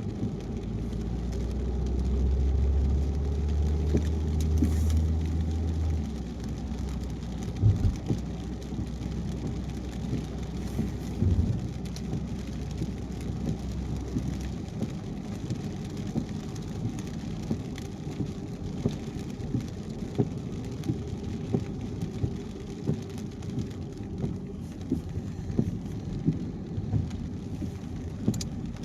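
Rain on a car driving on a highway, with scattered sharp raindrop ticks over a low road rumble. A deeper low rumble is strongest for the first six seconds and dies away about halfway through.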